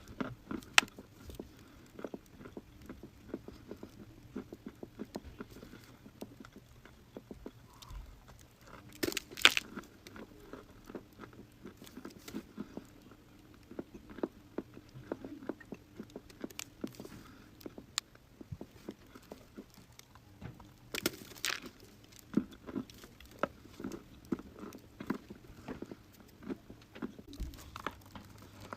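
Someone biting and chewing dry chalk and clay: a steady run of small crisp crunches, with two louder crunches about nine seconds in and about twenty-one seconds in.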